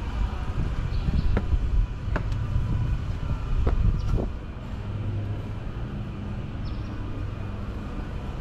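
A motor vehicle's engine running close by as a low rumble, with a few sharp knocks or rattles in the first half, settling into a steady low hum.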